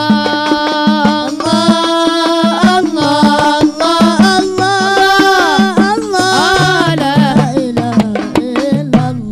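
Hajir marawis ensemble: marawis hand drums and deep hajir drums playing a busy rhythm under a voice chanting a qasidah in a long, ornamented melody.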